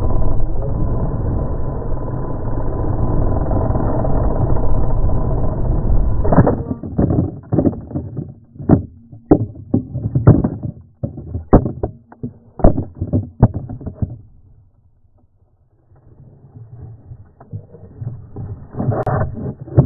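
Bumblebee 550 quadcopter coming down after losing a propeller: a steady noise of motors and wind, then, about six seconds in, it hits the ground. A rapid, irregular string of knocks and thuds follows as it tumbles, dying away to near silence, with a few more knocks near the end.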